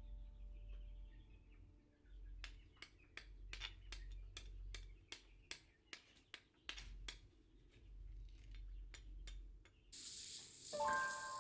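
Kitchen work: light, regular clicks and taps, about three a second, for several seconds. Near the end a steady hiss starts suddenly.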